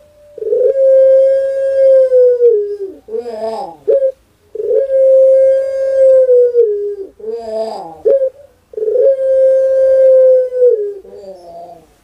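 A collared dove (puter) cooing three times, about every four seconds. Each coo opens with a short gliding note, then holds one long steady tone for about two seconds and drops away at the end.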